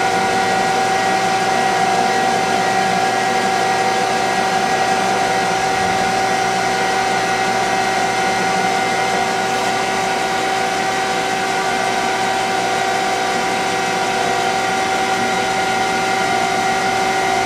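Citizen F12 CNC Swiss-type lathe running its program with the main spindle turning at 2500 rpm: a steady machine whir with several constant whining tones.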